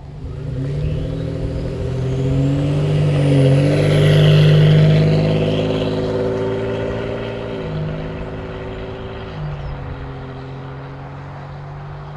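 Ford F-150 3.5L EcoBoost twin-turbo V6 pulling hard under throttle, with a high turbo whistle rising in pitch over the first few seconds. The engine note is loudest about four seconds in and then eases off as the truck lets up.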